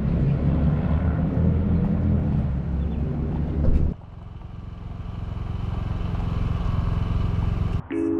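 A motor vehicle's engine running with a strong low drone. About four seconds in it cuts abruptly to a quieter, steadier low hum that gradually grows louder.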